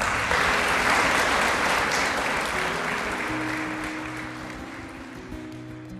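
Applause from a crowd of people, breaking out at once and dying away over a few seconds, with music playing underneath.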